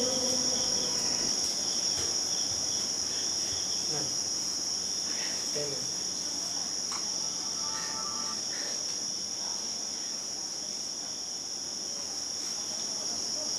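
Crickets chirring steadily in one continuous high-pitched drone, with a few faint clicks and knocks beneath it.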